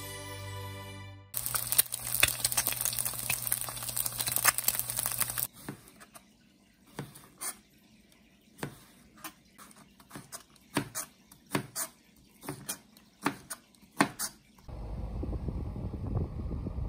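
Camp-cooking sounds: a few seconds of dense crackling over a low hum, then scattered clicks, knocks and rustles like utensils and packaging being handled, then wind rumbling on the microphone near the end.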